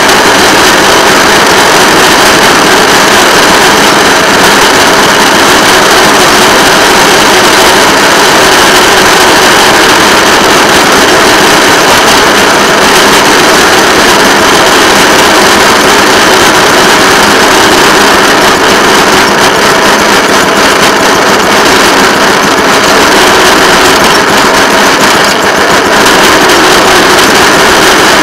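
Rail motor car (track speeder) engine running steadily as the car travels along the track, loud and unchanging throughout.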